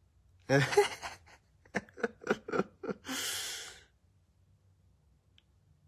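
A man's voice: a short vocal burst, then a quick run of about six laughing breaths, then one long breathy sigh.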